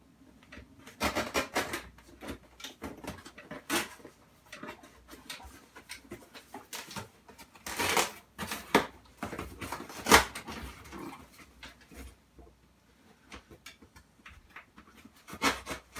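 Knife slicing packing tape on a cardboard shipping box and the box being worked open: irregular rasping and scraping strokes with rustling, the loudest stroke about ten seconds in.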